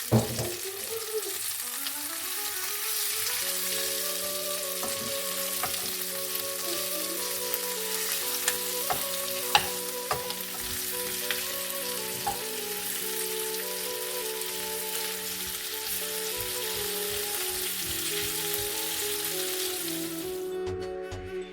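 Chicken wings sizzling and frying in a pan, a steady hiss with a few sharp clicks, which cuts off near the end. Soft background music plays underneath.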